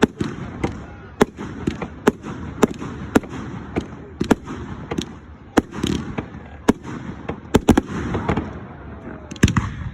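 Fireworks display: a steady run of sharp bangs from bursting shells, roughly two a second, with crackling between them and a quick cluster of bangs near the end.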